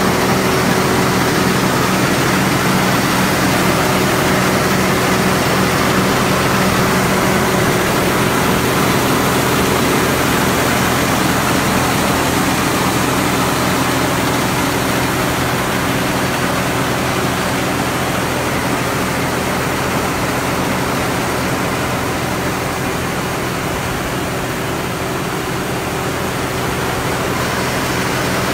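Combine harvester's engine running steadily: a constant low hum under a broad machinery hiss.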